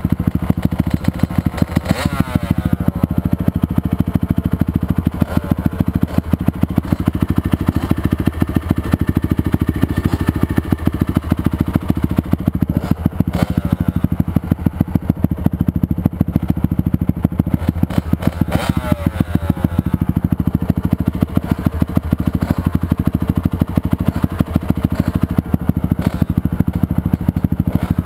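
Dirt bike engines idling with a steady, fast pulsing beat, with a short rev blipped about two seconds in and again around the middle.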